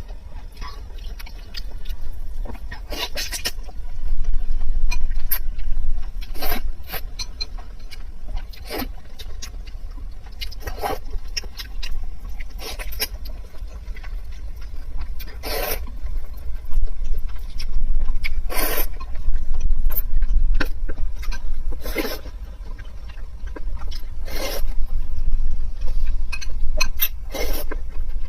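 Close-up eating sounds: irregular chewing, mouth smacks and slurps, every second or two, over a steady low rumble.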